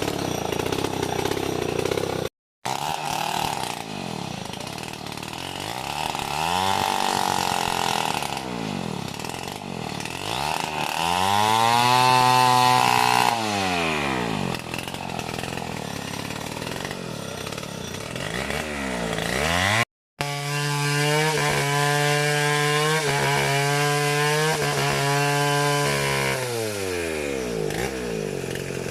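Chainsaw engine revving up and dropping back several times, with a steadier stretch of running about three-quarters of the way through. The sound cuts out completely twice, briefly.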